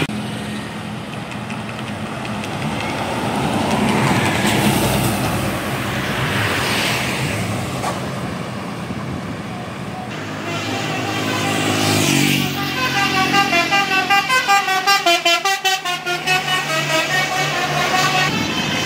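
Bus and traffic noise, then, about halfway through, a tour bus's telolet horn, a Basuri-style multi-trumpet musical horn, plays a quick tune of rapidly changing, pulsing notes for several seconds.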